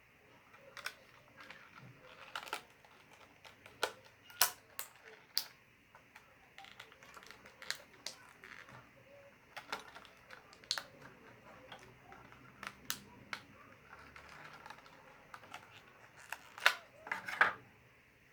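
Irregular sharp clicks and taps with faint rustling as wired in-ear earphones and their packaging are handled, loudest in a cluster near the end.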